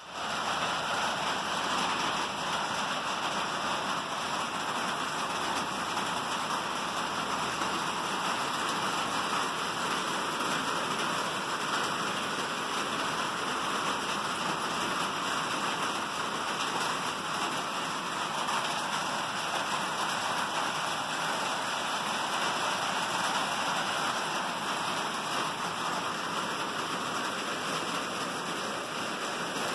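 Steady rain: an even, continuous hiss of rainfall with no breaks.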